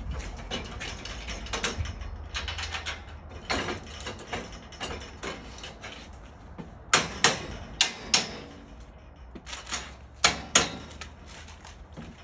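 Metal scaffold parts clanking and rattling as the guardrail is handled and the deck is walked on. Lighter rattles and scrapes at first, then four sharp clanks about seven seconds in and two more about ten seconds in.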